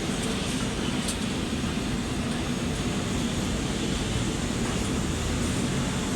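Steady low mechanical rumble at an even level, like a running engine or heavy machinery, with a few faint ticks.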